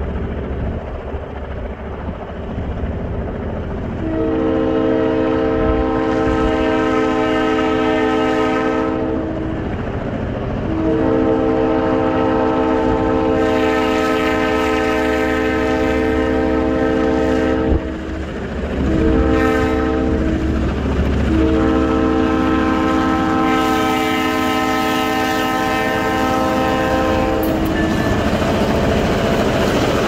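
Chesapeake and Indiana Railroad EMD diesel locomotive sounding its multi-chime air horn in the grade-crossing pattern, long, long, short, long, as it approaches a road crossing. A low engine rumble runs underneath, and near the end the locomotive passes close by with rising engine and rail noise.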